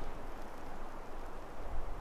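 Strong wind blowing, with a low, uneven rumble of gusts buffeting the microphone.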